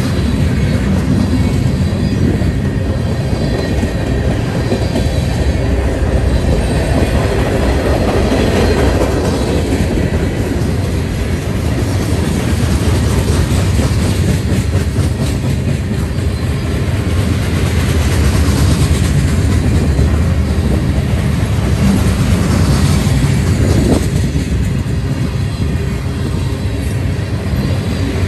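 Freight train of boxcars, tank cars and covered hoppers rolling past at close range: a steady, loud noise of steel wheels running on rail.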